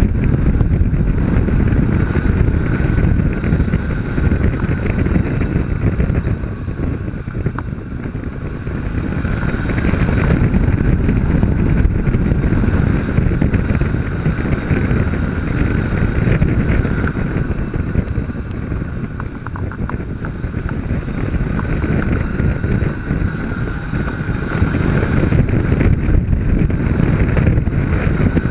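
Honda CB500 parallel-twin engine running at speed on track, under heavy wind rush over the camera's microphone. The sound eases off twice, about a quarter of the way in and again past halfway, then builds back up.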